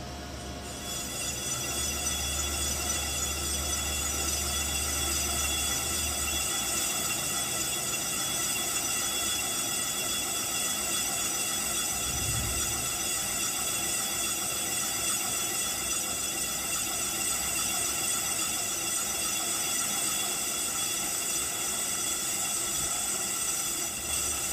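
Lathe grooving tool cutting a grease groove into a large cast phosphor bronze bushing, dry, the cut ringing with a steady high-pitched squeal.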